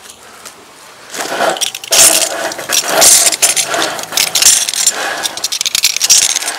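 Rope being worked loose and pulled off the crated motorcycle: loud, scratchy rasping in irregular pulls, starting about a second in.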